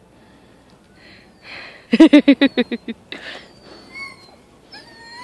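Sled dogs: a quick, loud run of about eight short yelps about two seconds in, then faint high whining near the end.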